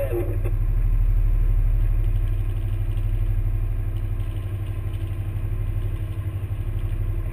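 Engine of an airsoft combat vehicle idling steadily, picked up close by a camera mounted on the vehicle while it sits still.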